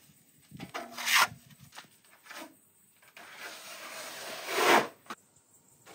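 Steel plastering trowel scraping across the wet finishing coat of plaster on a wall, in separate strokes: a loud one about a second in and a longer, louder one near the end.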